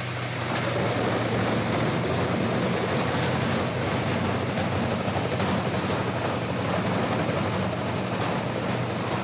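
Bandit Beast 3680 horizontal grinder running under load: a steady low engine hum under a dense rushing, crackling noise of logs being ground into chips, getting louder about half a second in.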